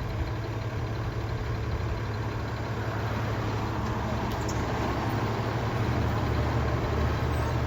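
Fire engine's diesel engine running steadily with a low hum, growing slightly louder toward the end.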